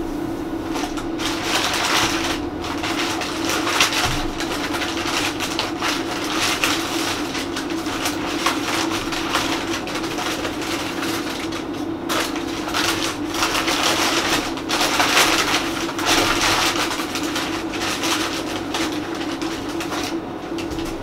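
Brown kraft packing paper being handled and unwrapped, a crinkling rustle that comes and goes in waves, over a steady low hum.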